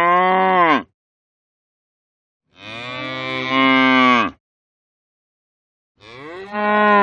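Domestic cow mooing: the tail of one moo, a full moo of about two seconds, and a third beginning near the end, each dropping in pitch as it ends, with dead silence between them.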